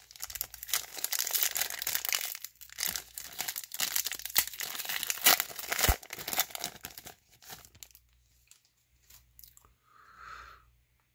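Foil trading card pack crinkling and tearing as it is ripped open by hand, with many sharp crackles; the crinkling stops about eight seconds in, leaving only faint handling of the cards.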